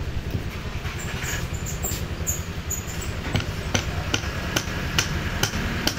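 A steel rod knocking a piston's gudgeon pin out of its bore: a regular row of sharp metal taps, about two and a half a second, from about halfway through, with lighter clicks before it.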